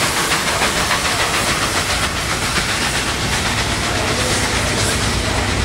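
Steam tank locomotive pulling away with a train of passenger coaches: a quick, even beat of exhaust chuffs over steam hiss, then a low rumble of the coaches rolling over the rails that grows from a little past halfway.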